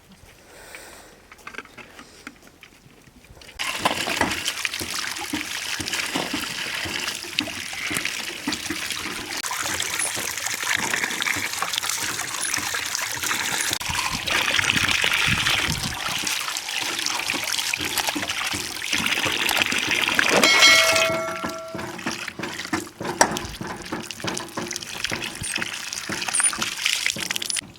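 Water running and splashing, starting suddenly a few seconds in and continuing steadily. A brief clear ringing tone sounds over it about two-thirds of the way through.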